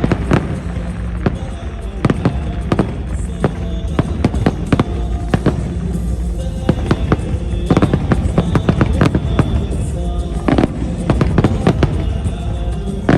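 Fireworks display going off: a rapid, irregular string of sharp bangs and pops over a steady low rumble, with music playing underneath.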